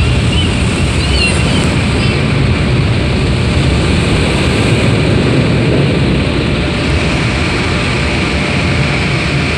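Automatic car wash dryer blowers blasting air over the car, a loud, steady roar heard from inside the cabin.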